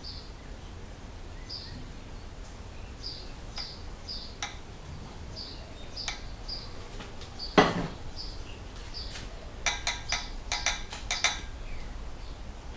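Metal parts and tools clinking while a diesel engine's crankshaft and main bearing caps are being fitted: one sharp clank about halfway through, then a quick run of light clinks. A bird chirps short repeated notes over it.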